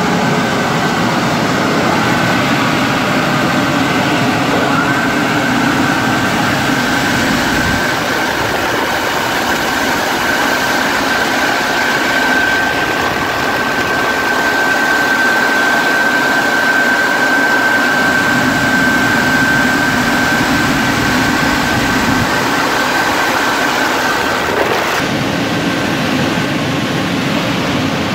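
Touchless car wash drying blowers running at full power: a loud, steady rush of air with a high whine over it, the whine stopping near the end.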